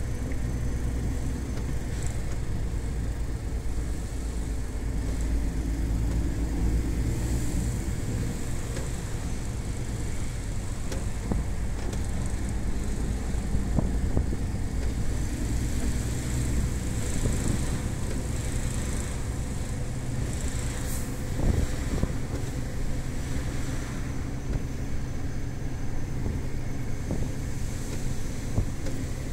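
MAN TGS 18.400's inline-six diesel engine running at steady revs under light load, heard inside the truck's cab as a low drone with road noise, cruising at an even speed. A few light knocks sound over it, the clearest about two-thirds of the way in.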